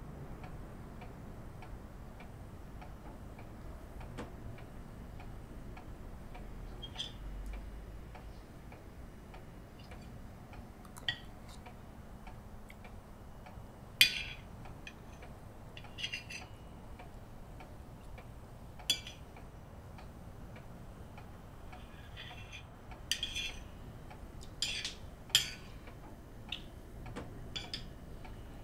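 Steady ticking in a quiet room, with cutlery clinking against plates now and then. The sharpest clink comes about halfway through, and several more follow close together near the end.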